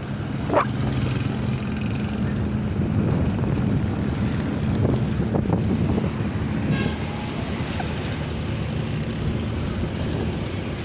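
A vehicle engine running steadily under continuous street traffic noise, with a brief high sliding tone about half a second in.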